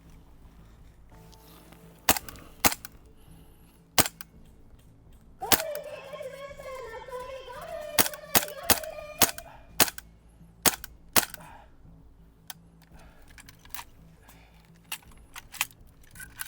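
Airsoft gas blowback guns firing single shots: a dozen or so sharp cracks at uneven intervals. A drawn-out, wavering pitched sound runs from about five and a half to ten seconds in.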